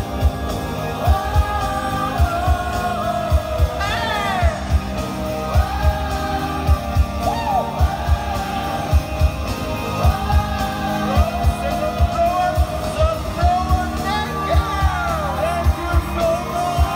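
Live pop music over an arena sound system with a steady beat, about two beats a second, and sung vocals. Fans scream and whoop over it, with short gliding shrieks about four seconds in and again near the end.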